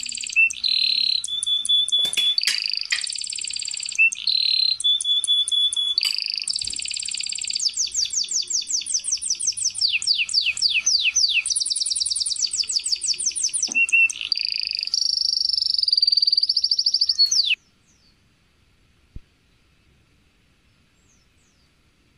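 A bird singing: fast, high-pitched trills and chirps follow one another without a break, then stop abruptly about seventeen seconds in.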